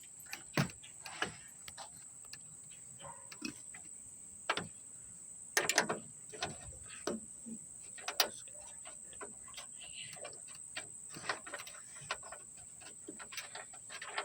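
Ratchet with an 8mm socket clicking in short irregular runs, with light metal taps, as the trunk latch bolts are run back in; the loudest cluster comes about halfway through.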